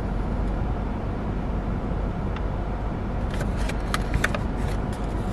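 Steady low hum of a car running, heard inside the cabin. About three to four seconds in comes a brief cluster of crinkles from a paper food bag held close to the microphone.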